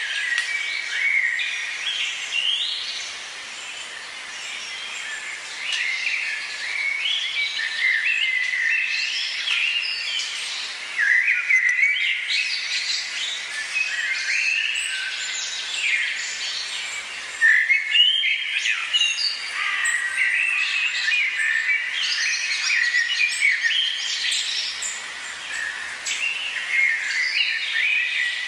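Many birds calling at once, a dense chorus of overlapping short chirps and whistled notes that continues without a break.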